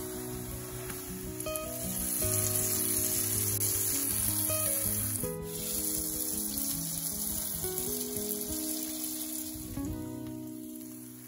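Food sizzling steadily as it fries in hot oil in a pan, with soft background music underneath.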